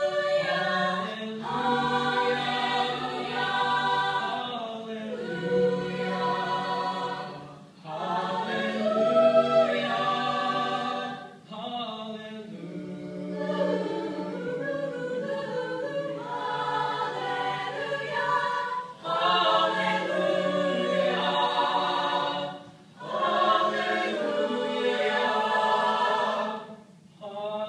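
Mixed-voice a cappella group singing in harmony, with a male lead singing into a microphone over the group's sustained chords and a steady low bass line. The song moves in phrases with brief pauses between them.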